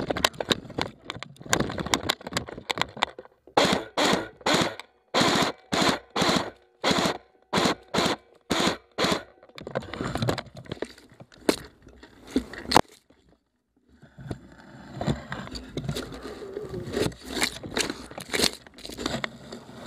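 Airsoft guns firing, a run of short bursts about twice a second in the middle, with scattered single cracks and rustling of movement around them.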